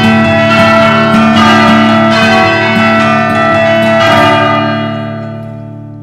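Church bells ringing a peal of many overlapping tones on the music soundtrack, closing a song. The strikes stop about four and a half seconds in and the bells ring away, fading.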